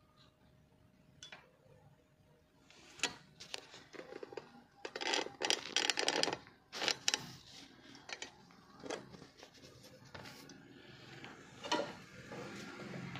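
Irregular clicks and knocks from handling small things on a workbench, thickest about halfway through, with a few single taps later.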